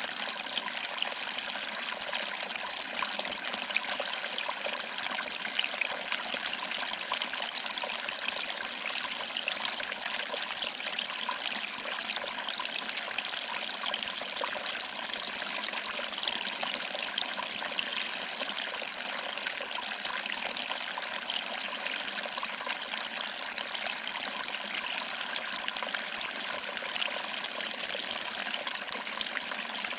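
Small waterfall: water trickling and splashing over rocks into a pool, a steady, unbroken rush with little deep rumble.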